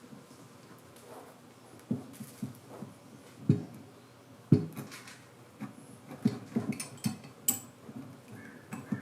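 Irregular knocks, taps and clicks of hand tools and wooden parts being handled during guitar repair work, with two louder thumps about three and a half and four and a half seconds in.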